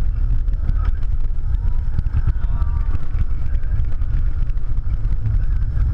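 Steady rough rumble of wind on the microphone and the train running on its steel track, heard from a rider's seat aboard Tatsu, a Bolliger & Mabillard flying roller coaster, at speed mid-ride.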